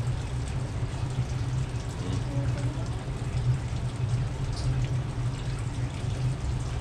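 Aquarium filters and pumps running: a steady low hum under a continuous trickle of water.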